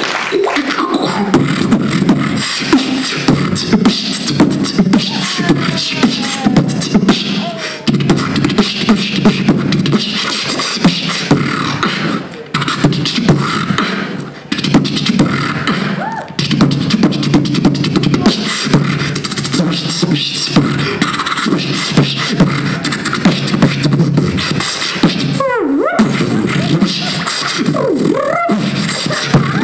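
Live beatboxing into a microphone: a fast run of vocal kick, snare and hi-hat strokes over a continuous deep bass line, with a few brief breaks in the middle and rising and falling vocal sweeps near the end.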